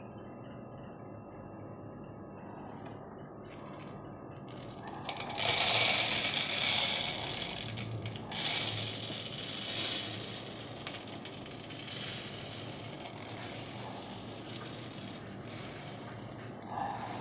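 Dry uncooked rice poured from a plastic cup into a plastic bowl, the grains rattling and hissing as they land. The pour starts about five seconds in, is loudest at first, and goes on in uneven spells as the bowl fills.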